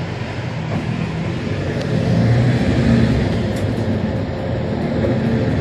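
Engine and road noise of a moving passenger vehicle heard from inside its cabin, a low engine hum under a steady rush that grows louder about two seconds in.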